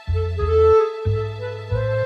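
Background music: a bass line in repeated notes beneath a slow melody that steps upward.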